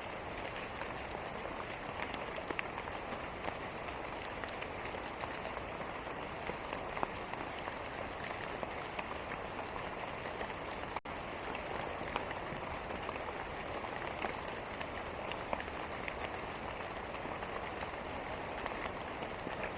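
Steady rainfall, a dense even hiss with many small drop hits scattered through it. The sound cuts out for a split second about halfway through.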